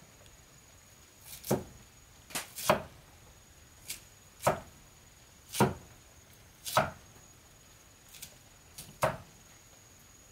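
Knife chopping food on a cutting board: about ten single sharp chops, unevenly spaced about a second apart.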